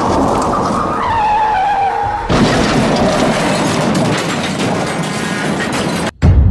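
Staged car crash sound effects over background music. Tyres screech with a wavering pitch, then a sudden loud crash and clatter of breaking glass and debris lasts several seconds. Near the end comes a deep boom.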